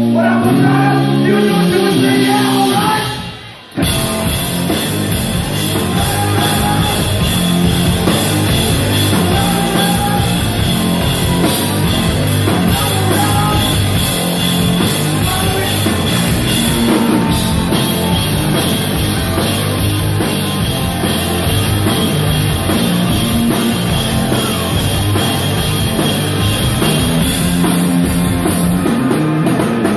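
Rock band playing live: electric guitar and drum kit, with singing near the start. The music drops out sharply for a moment about three seconds in, then the full band comes back in.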